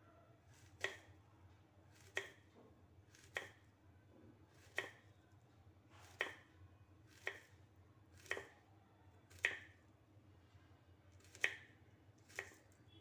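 Knife slicing through a raw nendran plantain and striking a wooden chopping board: sharp chops about once a second, ten in all.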